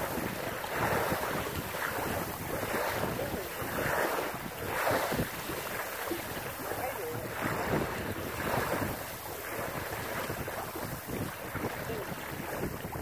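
Water rushing and splashing along the hull of an O'Day Daysailer sailboat under way, swelling in irregular surges about every second or so, with wind buffeting the microphone.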